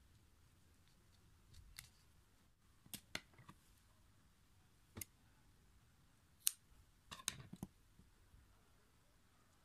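Scattered small, sharp clicks and snips of crafting tools handled at a tabletop: scissors cutting yarn and a thin metal crochet tool being set down. The clicks come about 2 s in, as a pair near 3 s, once at 5 s, and in a cluster a little after 6 s, with near silence between them.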